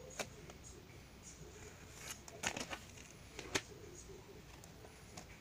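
Vinyl LPs and picture discs in clear plastic sleeves being handled and shuffled: plastic rustling with a few sharp taps and clicks as the records are lifted and set against one another, the loudest about two and a half and three and a half seconds in.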